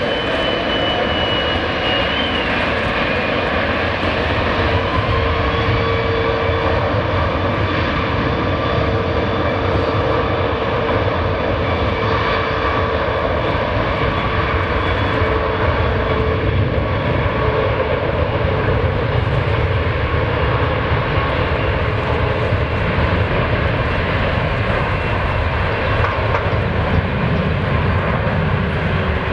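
Boeing 777 jet airliner's twin engines running at high power as it rolls down the runway: a steady, heavy jet noise with a whine that sinks slowly in pitch as the aircraft moves away.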